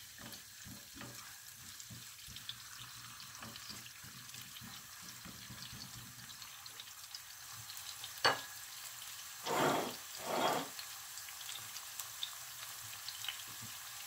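Onion, garlic and peppers frying in oil in a nonstick wok, a steady sizzle, with a spatula stirring and scraping through the pan in the first few seconds. About eight seconds in there is a sharp knock, followed by two short, louder rushes of noise around ten seconds.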